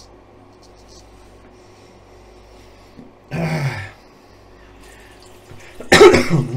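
Straight razor scraping faintly over stubble at the start. A short throat-clearing sound comes about halfway through. Near the end there is a loud splash of water with a blowing exhale as the face is rinsed over the sink.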